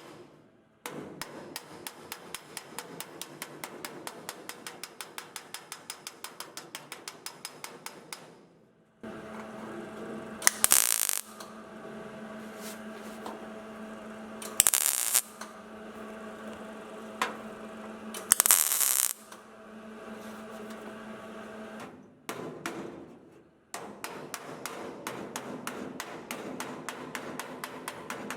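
Metal bodywork on car body panels: a fast, even tapping of about eight strokes a second, then a steady hum broken by three short, loud bursts of noise, then the fast tapping again.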